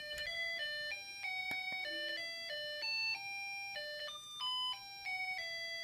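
A simple electronic melody of plain beeping notes, one at a time, changing pitch about every quarter second in the style of an ice-cream-van or music-chip tune. It starts suddenly after a short silence.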